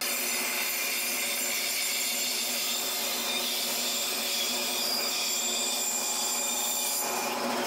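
Band saw running and cutting a wooden board: a steady hiss of the blade working through the wood, easing slightly near the end.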